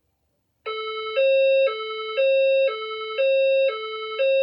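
Fire alarm speaker-strobe (an SPSR) sounding its alert tone, which starts under a second in and switches between a higher and a lower pitch every half second, the higher one louder. This is the signal tone that comes before the recorded 'Attention please' message and marks an event reported in the building that is still being verified.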